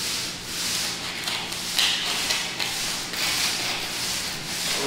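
Small handheld scraper rasping over a bare concrete floor in repeated short, irregular strokes, scraping off stuck-on residue.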